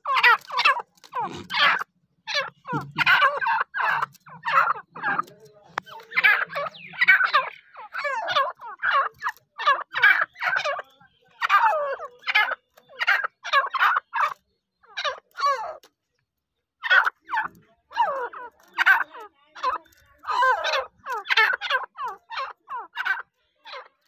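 Grey francolins calling: a long run of short, harsh, repeated call notes, about two a second, with a brief break about two-thirds of the way through.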